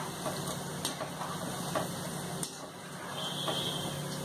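Aattukaal cake dough pieces of maida and rava deep-frying in hot oil in a steel kadai: a steady bubbling sizzle, with a few light clicks of a metal slotted spoon against the pan as the pieces are stirred.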